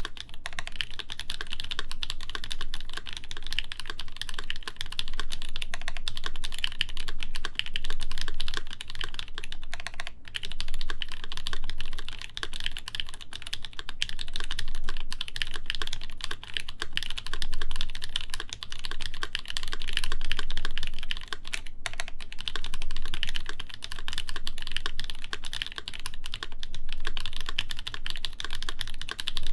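Continuous fast typing on a RAMA WORKS U80-A mechanical keyboard with lubed, broken-in NK Cream linear switches on a full brass plate and GMK keycaps, giving dense keystroke clacks with a few brief pauses.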